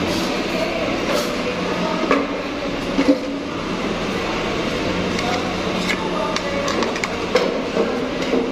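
Steady restaurant din with a murmur of voices, broken by a few sharp clinks of a metal spoon and fork against a plate.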